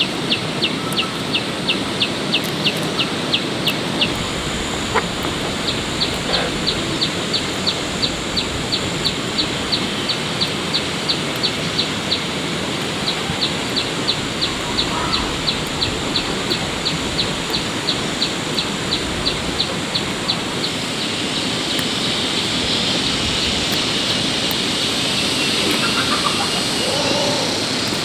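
Chick peeping in a fast, even series of short high peeps, about three a second, over a steady hiss. The peeps stop about twenty seconds in, and the hiss grows a little louder.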